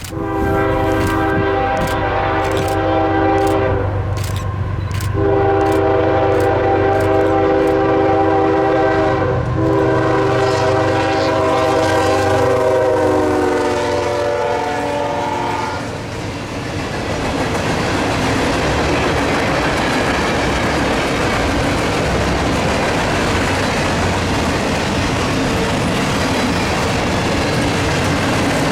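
Nathan K5HL five-chime horn on a CSX GE ES44AH diesel locomotive, blown in long blasts with a short break, its chord dropping in pitch as the engine passes. The loud rumble and clatter of the train's wheels rolling by follows.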